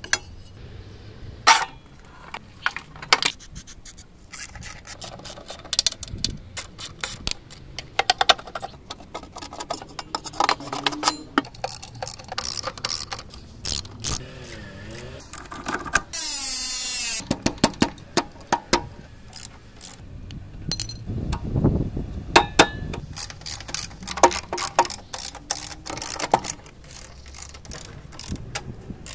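Hand tools working on a rusty scooter's rear chain case and shock absorber: a steady string of metal clinks, taps and knocks, with a socket wrench ratcheting a bolt loose a little past halfway and a dull thump a few seconds later.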